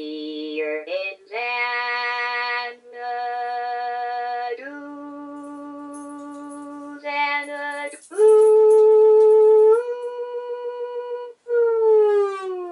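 DECtalk DTC01 speech synthesizer singing in its electronic voice, holding a series of long, steady notes. Near the end, after a brief break, the voice slides down in a long falling glide.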